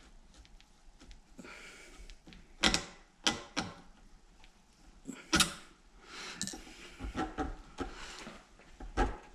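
Metal clicking and knocking as a screwdriver is worked free of the coiled leaf spring on a Jaguar E-Type trunk hinge: several sharp clacks, the loudest about three and five seconds in and again near the end, between light scraping and handling.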